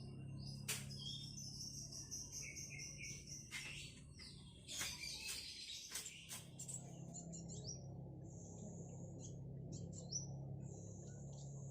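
Black sunbird singing and chirping in high, thin notes: a run of twittering in the first half, then short separate high notes. A few sharp clicks fall in the first half, and a faint steady low hum runs underneath.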